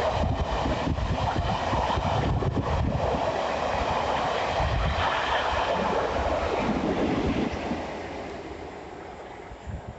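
The railtour train hauled by 46100 Royal Scot with a Class 47 running through, a steady rumble of wheels on rail that fades away from about seven and a half seconds in as the train draws off. Wind noise on the microphone.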